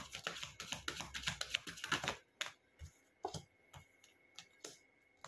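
Tarot cards being handled: about two seconds of rapid dense clicking as the deck is shuffled, then a handful of single light taps as cards are set down on the table.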